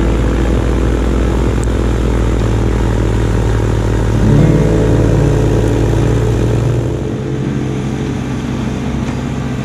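Kubota LX2610 compact tractor's three-cylinder diesel running steadily under load, driving a front-mounted LX2980 snow blower through deep wet snow. The engine note shifts about four seconds in, and the sound grows a little quieter near the end.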